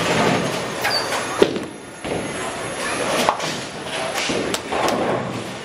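Bowling alley din: bowling balls rolling on the lanes and clattering impacts of balls and pins, with a sharp knock about a second and a half in and further clatters near the middle and end.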